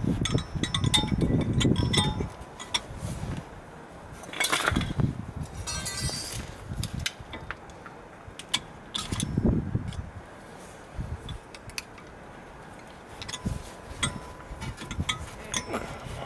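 Light metallic clicks, clinks and knocks as the front brake caliper and pads of a VW Golf Mk5 are handled and fitted, with a few low thumps and brief rustles between them.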